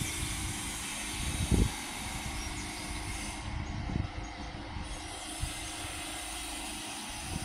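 Wind on the microphone: a steady hiss with irregular low buffeting gusts.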